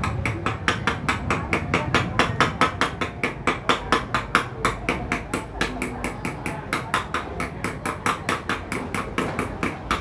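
Steady, rapid hammer blows, about four or five a second, on a steel bearing driver, tapping a new greased ball bearing into a Honda Unicorn motorcycle hub: sharp metal-on-metal strikes.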